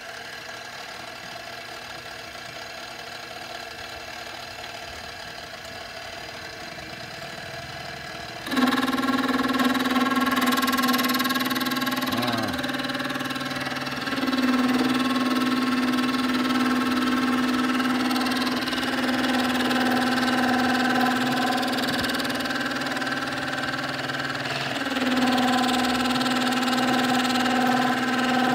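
Milling machine cutting a dovetail into a metal block with a dovetail cutter: a steady machine hum that jumps suddenly louder about eight seconds in to a strong steady whine with cutting noise, dipping and rising a few times as the cut is fed.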